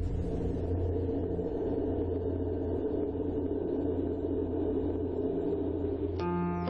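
A steady low rumble with a deep hum beneath it. Near the end it gives way to soft piano music.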